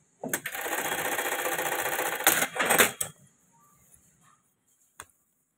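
Industrial buttonhole sewing machine running a rapid stitching cycle for about three seconds, ending with a few clacks. A single click follows about five seconds in.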